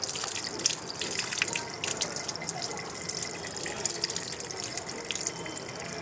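Water running from a tap and splashing over a parakeet and the hands bathing it, with many small drips and splashes.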